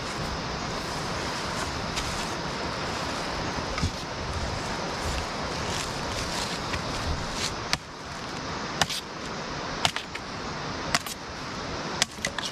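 Sharp knocks of a machete blade chopping at wood, about one a second through the second half, over a steady rushing background.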